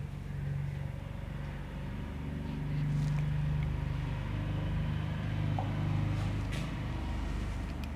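A low, steady rumbling hum that swells about three seconds in and stays up until near the end, with one faint tap past the middle.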